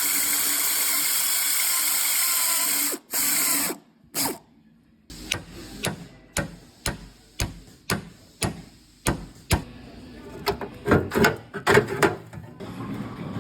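Workshop tools on a car body: a power tool runs steadily for about three seconds and stops, then a string of sharp clicks comes about twice a second, quickening and getting louder near the end.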